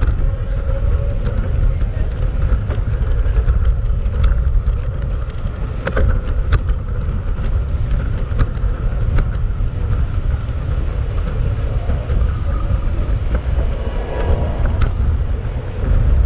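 City street noise heard from a moving bicycle: a steady low rumble with passing traffic and a scattered few sharp clicks.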